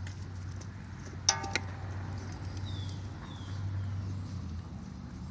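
A single short, pitched animal call about a second in, over a low steady rumble, with a few faint high descending chirps now and then.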